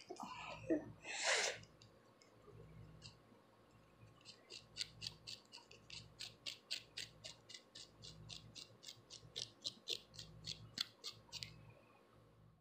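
Long acrylic fingernails scratching through short, dry hair on a flaking scalp, loosening dandruff: a quick, even run of short scratches at about four a second. A brief, louder noise comes in the first second and a half.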